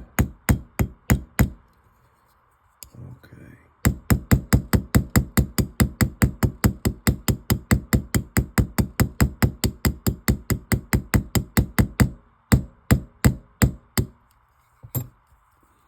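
Light, rapid hammer taps, about five a second, peening over a straight razor's pivot pin onto its washer. The taps come in long runs broken by short pauses.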